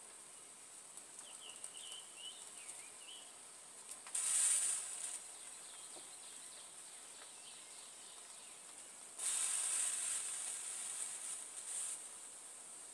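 Two loud bursts of hissing, a short one about four seconds in and a longer one of about three seconds near the end, over a faint steady hiss, with a small bird chirping a few times about a second in.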